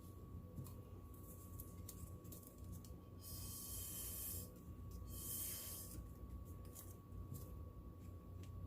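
Two short hissing blasts of air, each about a second long with a faint whistle, blown across wet acrylic pour paint to push it out toward the edges; light taps and clicks come between them.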